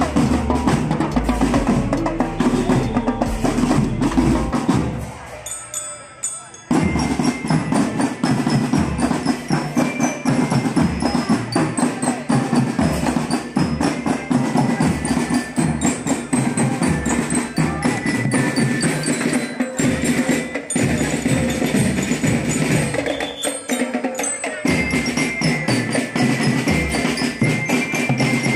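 Percussion music from a drum band: drums with bright mallet-bell tones like a glockenspiel. The music drops away briefly about five seconds in, then starts again.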